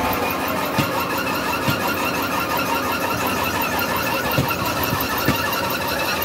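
LiuGong wheel loader's diesel engine running while it lifts and tips a bucket of sand into a feed hopper, over the steady noise of a running conveyor belt. A few short, sharp knocks.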